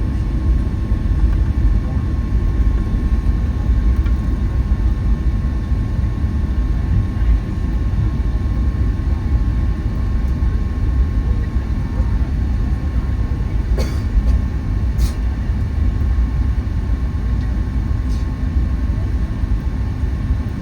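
Steady low rumble of a Boeing 757-200 heard from inside the passenger cabin, engine and airframe noise with a faint steady whine above it. A few short clicks come partway through.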